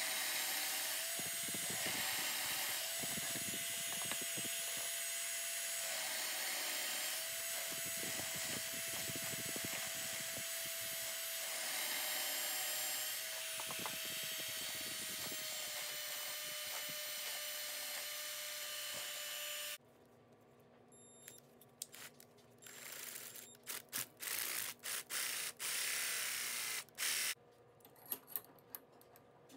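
Drill press motor running steadily as a bit bores a cluster of holes into a softwood block to hollow out a recess for a nut, its pitch sagging slightly each time the bit bites. It stops abruptly about two-thirds through, giving way to quiet clicks, knocks and short scraping bursts as the nut is pressed into the wood in a metal bench vise.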